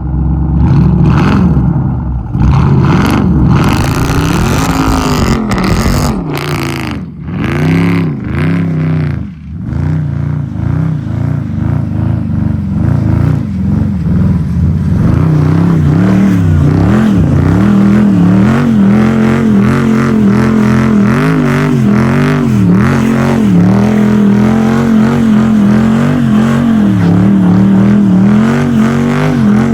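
Jeep SRT8's 6.4-litre Hemi V8 revving hard, its pitch climbing and falling again and again. There are two brief drops about a third of the way in, then a run of quicker, shallower rises and falls.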